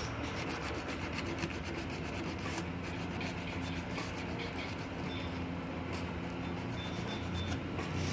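Rapid rubbing strokes as a part of a motor starter's contactor magnet is scrubbed clean, dirt on the magnet faces being what makes a starter chatter.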